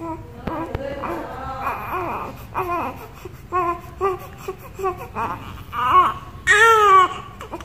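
One-month-old baby making a string of short, high-pitched fussing vocal sounds, with a louder, longer cry near the end.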